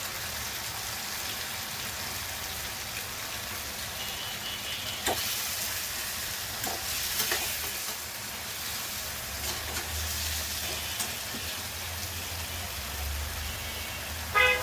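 Chicken pieces frying in hot oil and spice paste in a pot, a steady sizzle, with a few short knocks about five, seven and eleven seconds in.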